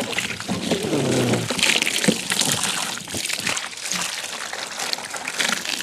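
Water from a garden hose splashing and gushing over a scooter's plastic windscreen and front bodywork as a hand rubs it down, an uneven run of splashes and drips.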